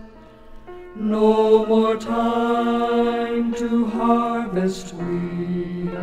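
Southern gospel quartet recording playing a slow passage of long held chords, the notes shifting about every one to two seconds after a quieter first second.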